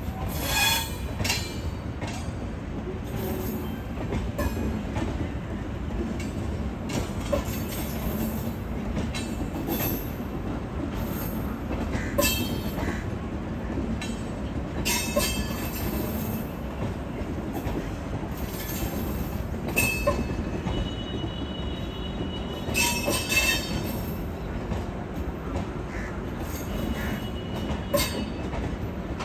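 Passenger train running on the rails: a steady low rumble with frequent sharp clicks and knocks from the wheels and couplings. A couple of brief, high-pitched wheel squeals come in near the two-thirds mark and near the end.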